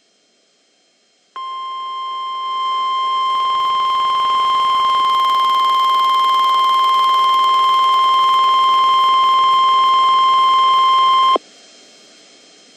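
NOAA Weather Radio 1050 Hz warning alarm tone, the steady single-pitch tone that signals a warning message is about to follow. It starts about a second in, grows louder over the first couple of seconds, holds for about ten seconds and cuts off abruptly, leaving faint radio hiss.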